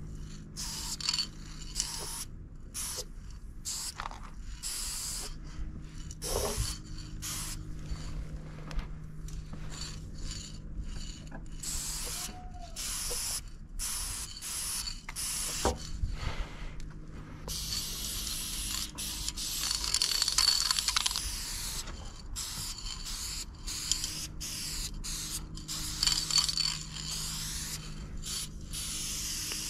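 Aerosol spray-paint can hissing in many short bursts as lines are sprayed onto the bus body, with one longer continuous spray about two-thirds of the way through.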